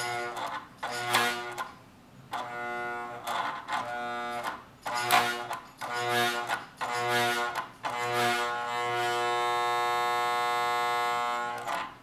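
Hoover vacuum-cleaner motor buzzing at a fixed pitch as power goes through its field windings. It is switched on in short bursts about once a second, several starting with a crackle, then held on for about three seconds and cut off sharply.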